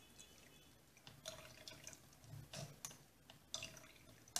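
Metal spoon pressing and scraping wet blended parsley pulp through a fine-mesh metal strainer to squeeze out the juice: faint, irregular scrapes and wet clicks, several a second.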